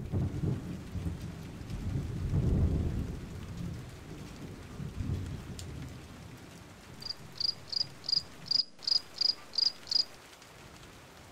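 Low rolling rumble of distant thunder that swells about two seconds in and fades, over a steady hiss. Near the end come about nine quick, evenly spaced high chirps of a cricket, about three a second.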